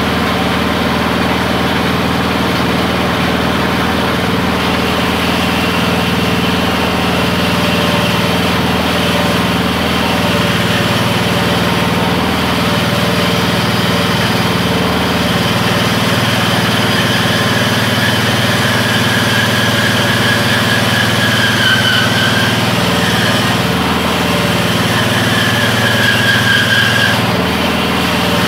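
Small gasoline engine running steadily, driving a homemade bandsaw while a wooden board is fed through the blade. A high whine comes and goes several times in the second half.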